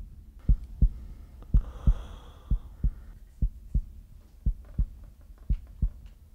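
Heartbeat sound effect: low double thumps, lub-dub, repeating steadily about once a second over a faint low rumble.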